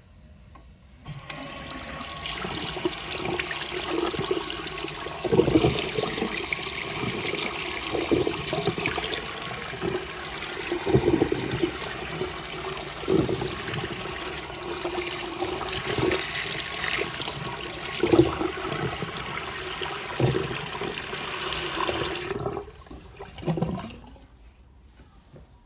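TOTO toilet flushing: rushing water starts suddenly about a second in, with irregular gurgling surges, and dies away after about twenty seconds.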